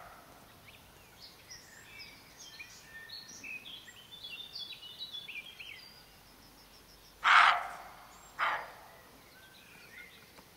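A roe deer doe barking in alarm: one loud bark about seven seconds in and a shorter, weaker one a second later. Before the barks, a songbird sings a varied song of quick chirps and whistles.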